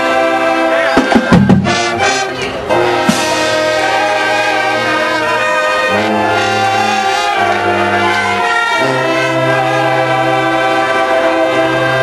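High school marching band playing, the brass section holding sustained chords that change every second or two, with loud drum hits about a second in and a cymbal crash shortly after.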